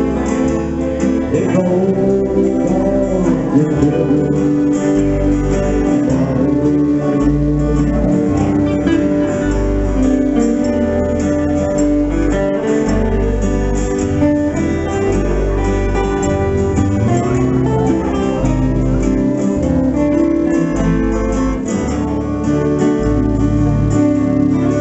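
Small country band playing live: acoustic guitars strumming over an electric bass line, with electric guitar. The bass notes change about once a second.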